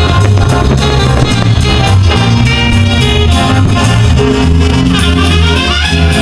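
Loud music with brass instruments over a steady bass line.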